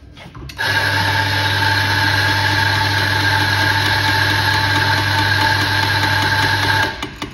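Electric espresso grinder's motor running a timed double dose of about six seconds into a portafilter: a steady hum that starts about half a second in and cuts off sharply near the end.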